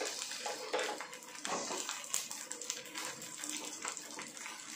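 Spatula stirring and turning rice in a hot frying pan: a steady sizzle broken by irregular scrapes and taps of the spatula against the pan.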